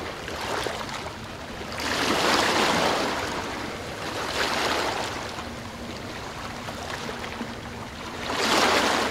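Small waves breaking and washing up on a sandy beach, the wash swelling three times, about two, four and a half and eight and a half seconds in.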